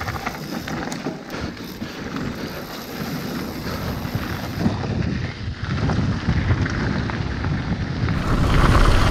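Wind buffeting an action camera's microphone, mixed with mountain bike tyres rolling over a dirt and gravel trail during a fast descent. The rumble grows louder in the second half as speed builds.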